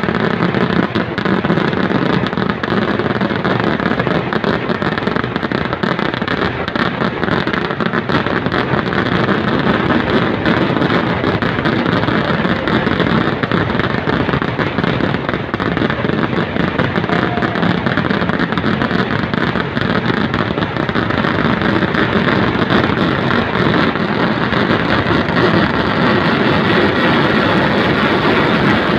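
Massed firecrackers and aerial shells of a Kerala temple fireworks display (vedikkettu) going off in a dense barrage. The bangs come so fast that they run together into one steady, loud noise.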